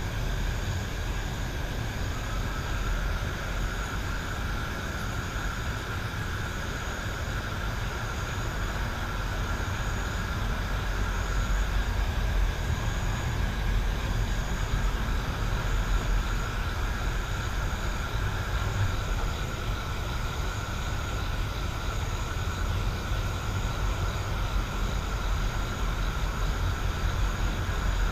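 Night countryside ambience: a steady low rumble under a continuous high-pitched insect drone, with a faint chirp pulsing about every second and a half.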